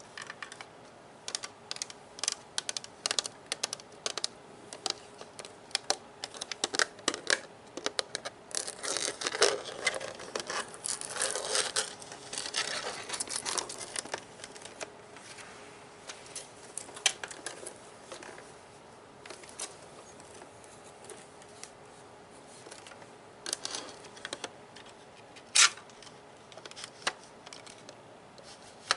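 Plastic Nerf gun being handled by hand: scattered clicks and taps, a busier stretch of quick clicking and rubbing about a third of the way in, then sparser clicks and one sharp click near the end.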